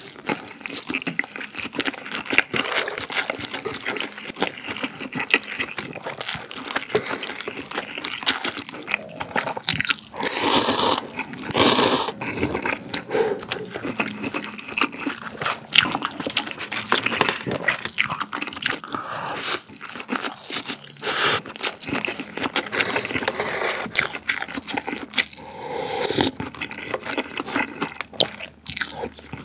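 Close-miked eating sounds of spicy cup ramen: chewing with many small wet clicks and crunches, and two longer slurps of noodles about ten seconds in.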